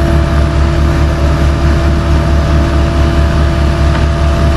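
Heavy engine running steadily at constant speed, with an even low pulse and a steady whine over it.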